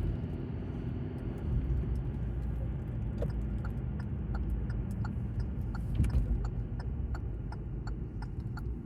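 Car cabin: steady engine and road rumble while driving. From about three and a half seconds in, the turn-signal indicator clicks about two and a half times a second.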